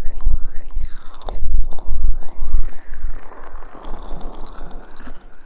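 Fingers rubbing aloe vera gel over an ear-shaped ASMR microphone, close, wet squelching and rubbing. Repeated low thuds for the first few seconds, then a smoother, steadier rubbing.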